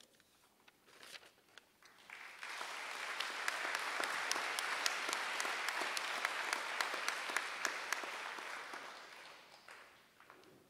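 Audience applauding, swelling about two seconds in, holding through the middle and dying away near the end, with single claps standing out.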